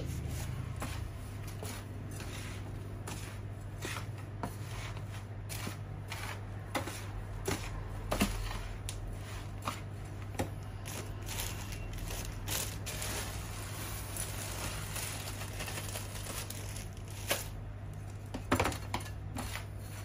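A hand trowel stirring and scraping a gritty potting mix of perlite, pumice and composted leaves in a plastic tub. It makes a continuous crunchy rustle with many small clicks and a few louder knocks, over a steady low hum.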